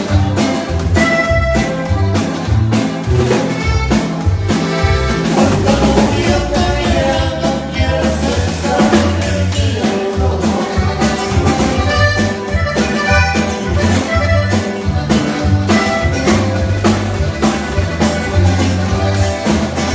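Norteño band music, the instrumental opening of a song: drums and a pulsing bass keep a steady beat under a melody.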